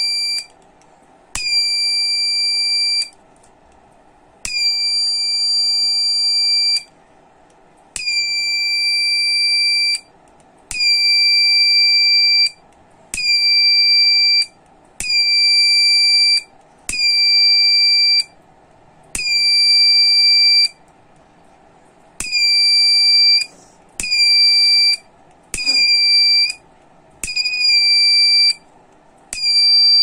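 Buzzer of a homemade flame-detector alarm sounding a steady high-pitched tone in about a dozen bursts of one to three seconds, cutting in and out at irregular intervals as its photodiode sensor picks up a lighter flame held in front of it.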